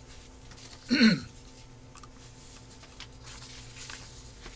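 One brief spoken syllable with falling pitch about a second in, then quiet studio room tone with a steady low electrical hum and faint rustling.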